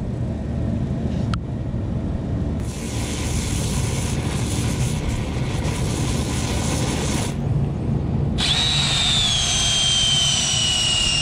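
A torch flame hisses for about five seconds as it anneals the end of a hard copper tube. From about eight seconds in, a cordless drill turns a spin-swage tool into the softened copper, its motor whining and slowly dropping in pitch as it loads up.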